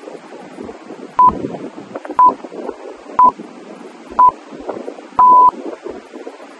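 Four short electronic beeps a second apart, then one longer beep at the same pitch: a workout interval timer's countdown cue marking the start of the next exercise. Wind noise on the microphone and surf underneath.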